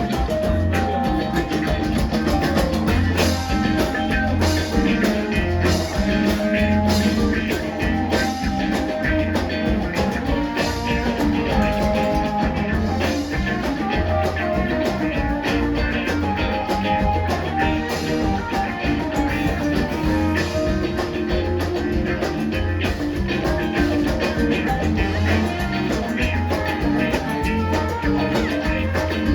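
Live rock band playing a steady, driving groove: drum kit, bass and electric guitar, with keyboards in the band.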